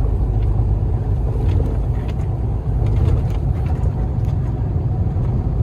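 Steady low drone of a truck's engine and road noise while it drives along a snowy road.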